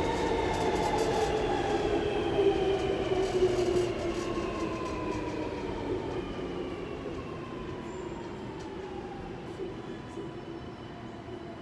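OSCAR H-set electric multiple unit slowing as it arrives: the whine of its traction motors glides steadily down in pitch as the train brakes, fading as it slows. Light clicks of wheels over the rails come through in the first few seconds.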